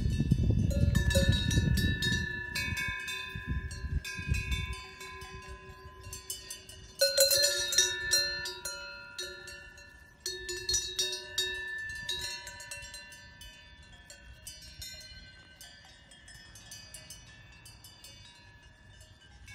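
Several cowbells at different pitches clank and ring irregularly as cows graze and move their heads. The bells ring loudest about seven seconds in and again around ten seconds, then die away to a few faint clanks.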